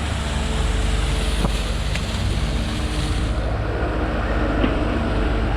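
Excavator engine running steadily, with a couple of faint clicks.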